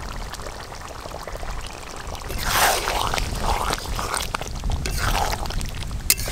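Metal spatula stirring a thick mutton and potato curry in a metal pot: wet sloshing, scraping strokes that start about two and a half seconds in and repeat every half second or so, with a sharp clink of metal on the pot near the end, over a low rumble.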